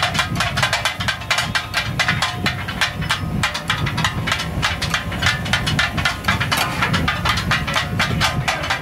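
Steel blades clattering rapidly on a flat iron griddle, several strikes a second, as goat brain and offal are chopped and tossed for katakat. A steady low rumble runs underneath.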